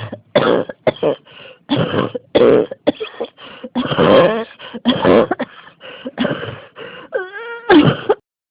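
Person in a fit of rapid, harsh coughs, two to three a second, with a brief pitched wheeze on a breath in near the end before one last cough.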